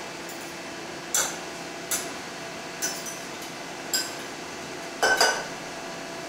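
Metal utensil clinking against a stainless-steel saucepan while boiled bay leaves are fished out: sharp clinks about a second apart, the last a quick double.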